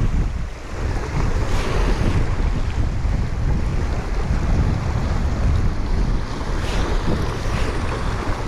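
Wind buffeting the microphone with a heavy low rumble, over the steady wash of sea waves.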